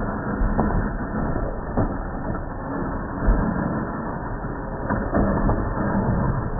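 Scale RC winch (RC4WD Warn) whirring as it reels in the taut line, a steady small-motor and gear sound, with a few knocks from the truck's chassis on the rocks.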